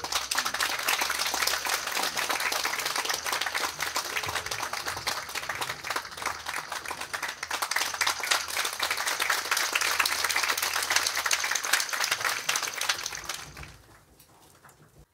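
Audience applauding, many hands clapping together, dying away about a second before the end.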